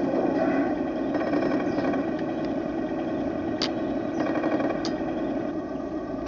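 Heng Long 1:16 radio-controlled Leopard 2A6 model tank running on sand, a steady whining mechanical drone from its drive motors and gearboxes. Two sharp clicks come about three and a half and five seconds in.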